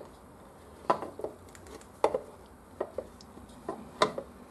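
Valve cover on the front cylinder of a Honda XL600V Transalp V-twin knocking and clattering against the engine and frame as it is wiggled by hand to work it free. Several sharp, irregular knocks.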